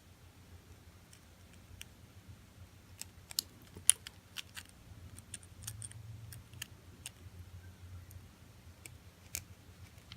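Light, scattered metallic clicks and ticks of small padlock parts (pins, springs and the lock cylinder) being handled and fitted, a little busier about four seconds in.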